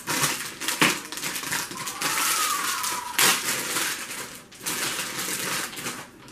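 Crinkly plastic toy packaging being torn open and handled, a dense crackling rustle with sharp snaps that dies down near the end.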